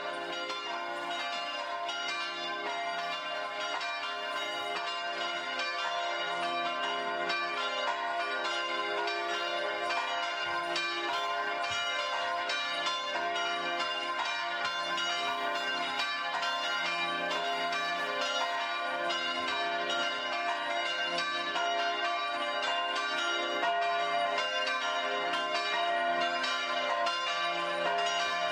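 Church bells ringing, many bells struck in quick, overlapping succession, their tones hanging on, slowly growing louder.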